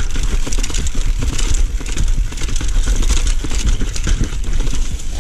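Mountain bike riding down concrete steps and onto a dirt trail: a rapid, uneven clatter and rattle of the chain and frame over the bumps, with wind rumbling on the handlebar camera's microphone.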